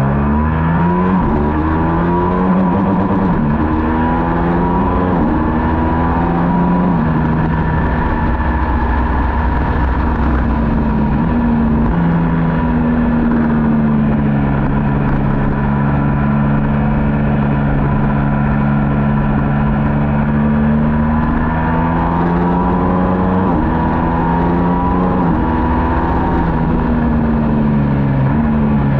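Onboard sound of a middleweight superbike racing motorcycle under hard acceleration. The engine note climbs and drops back with each upshift, four times in the first seven seconds, then holds a high, fairly steady note for about ten seconds before climbing through more shifts, with heavy wind rush underneath.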